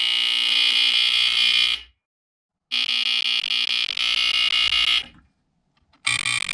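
BRK 2839ACI smoke alarm's buzzer sounding a loud, harsh buzz in long blasts of about two and a half seconds, separated by brief gaps of under a second.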